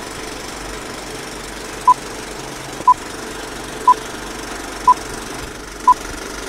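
Film-leader countdown sound effect: a steady movie-projector whir and clatter, with a short high beep once a second, five times, starting about two seconds in.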